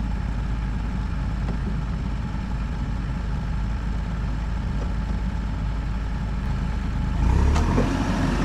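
Bobcat E42 compact excavator's diesel engine running steadily, getting louder about seven seconds in, with a short knock just after.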